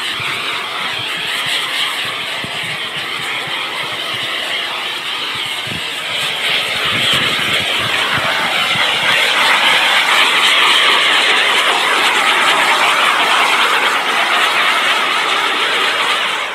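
Shrink-wrap heat gun blowing with a steady hiss, growing louder about six or seven seconds in.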